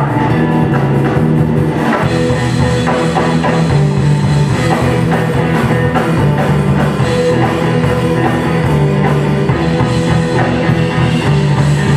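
Live rock band playing an instrumental passage: drum kit and guitars, loud and driving, cutting off suddenly at the end.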